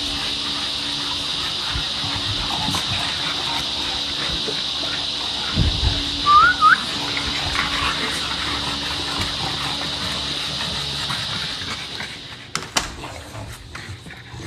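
A steady high hiss, with a dull thump and two quick rising squeaks a little under halfway through; the hiss drops away near the end.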